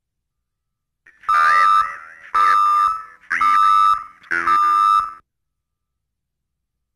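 Four loud electronic beeps about a second apart, each a steady high tone with a wavering upper tone over it, from the tape-duplicator's logo ident at the head of a VHS recording.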